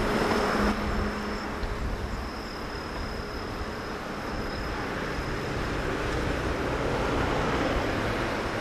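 JR West DD51 diesel-hydraulic locomotive, with its twin V12 diesel engines, running as it approaches with a train: a steady rumble that grows a little louder toward the end.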